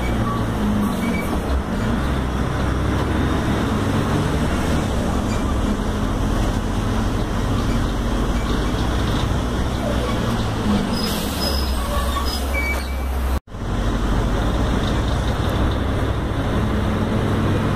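Mercedes-Benz OF-1721L BlueTec 5 bus's front-mounted diesel engine running steadily under way, with road noise. The sound drops out for an instant about thirteen seconds in.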